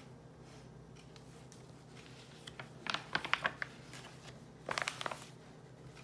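Paper pages of a picture book being turned and handled: a short crackly rustle about halfway through, and another shortly before the end.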